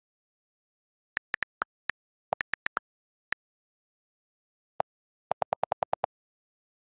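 iPhone on-screen keyboard clicks: about a dozen light taps as a message is typed. Near the end comes a quick run of about eight lower, fuller clicks from the delete key as the text is erased.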